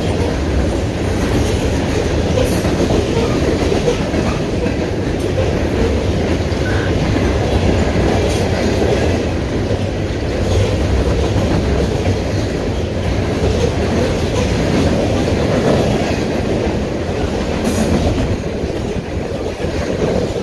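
Norfolk Southern freight train of open-top coal cars rolling past close by: steady wheel-on-rail noise, with a few sharp clicks along the way.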